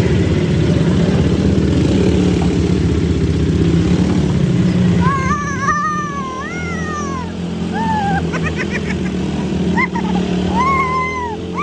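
ATV engine idling, a steady low rumble. From about halfway, several high calls that rise and fall sound over it.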